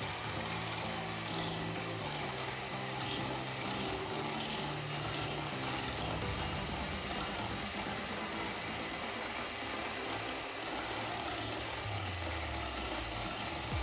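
Electric hand mixer running steadily, its beaters whipping cream and powdered sugar in a glass bowl, with background music underneath.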